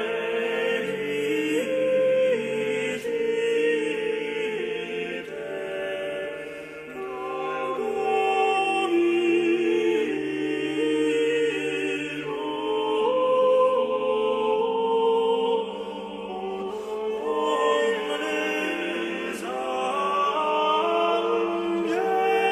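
Background music of slow choral chant: several voices holding long notes that move in slow steps, with no beat.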